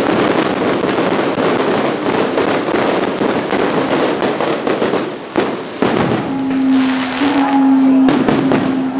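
Fireworks and firecrackers crackling in a dense, continuous barrage of pops and bangs, easing briefly about five seconds in. A steady held tone joins about six seconds in.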